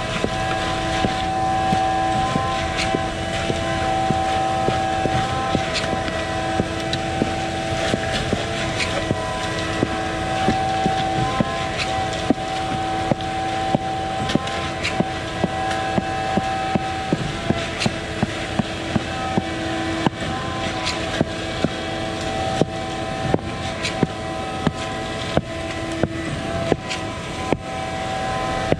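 Concrete boom pump truck running steadily while pumping concrete, with a regular knock that comes faster in the second half, about two a second near the end.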